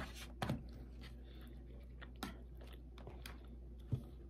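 Two people chewing and eating at a table, with a few scattered light clicks and knocks of forks against plates, the clearest about half a second in and near the end.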